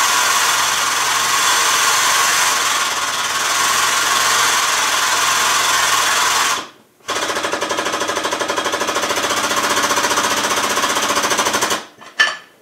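Powered pump of a hydraulic shop press running loud and steady for about seven seconds, stopping briefly, then running again with a fast pulsing for about five more seconds, driving the press ram to press a part onto an R380 gearbox shaft.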